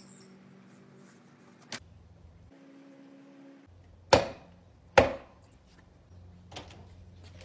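Two loud sharp bangs about a second apart, each with a short ringing tail, after a fainter knock about two seconds in.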